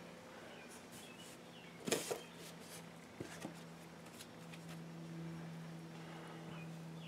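Cloth and cardboard handled on a wooden workbench: a T-shirt rustles as it is spread out, and a piece of thick cardboard is set down on it with a soft knock about two seconds in, followed by a couple of light taps. A steady low hum runs underneath.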